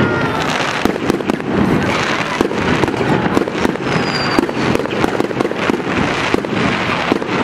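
Aerial fireworks display: a rapid, continuous run of bangs and crackling bursts, with a faint short falling whistle about four seconds in.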